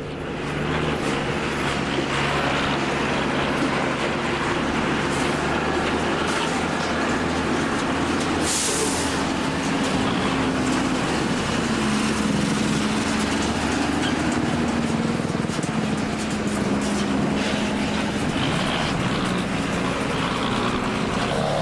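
Steady motor-vehicle engine noise with a hum that drifts slowly in pitch.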